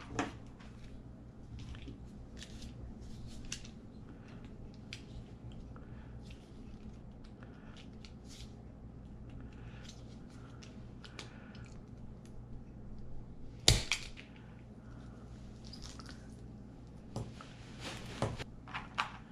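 Small clicks and rattles of copper crimp lugs, heat-shrink tubing and a wire stripper being handled on a tabletop, with one sharp snap about 14 seconds in and a few more clicks near the end.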